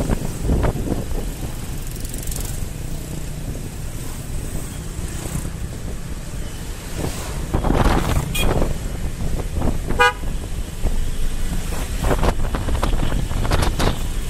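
Steady wind rush and engine noise of a motorcycle riding through town traffic, with other motorcycles passing. A short horn toot sounds about ten seconds in.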